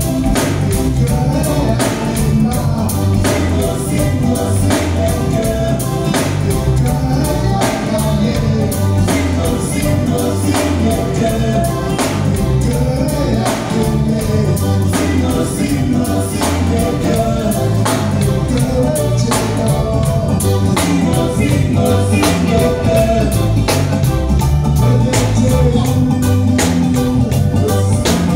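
Live band playing: drum kit, keyboard and guitars, with several singers singing together over a steady drum beat.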